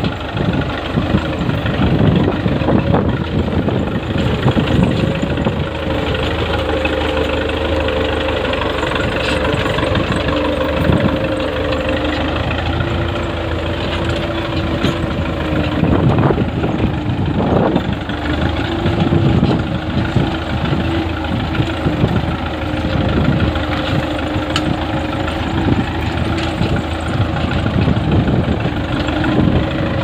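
Farm tractor's diesel engine running steadily under load as it pulls a tine cultivator through the soil.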